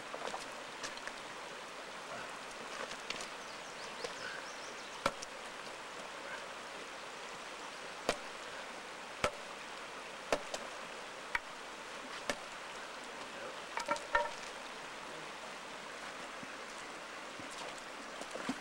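Stream flowing steadily, with a large fish being clubbed with a wooden stick: sharp knocks about a second apart that start a few seconds in and end in a quick cluster.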